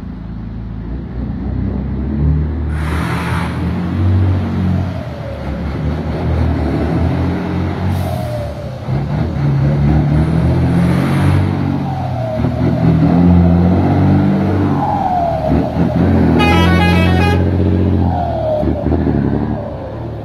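Scania 113 truck's 11-litre six-cylinder diesel through an open straight exhaust pipe, revving and dropping in several steps as the tractor-trailer pulls across the yard and past. A short falling whistle follows each drop in revs, with brief hisses of air at a few points and a rapid chattering burst near the end.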